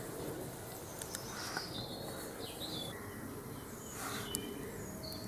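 Woodland birds singing in short, high chirping phrases, over faint crackles and pops from a freshly lit campfire.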